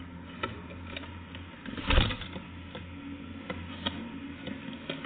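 Birds at a nut feeder, pecking and landing: irregular small taps and clicks, with one louder knock about two seconds in, over a low steady hum.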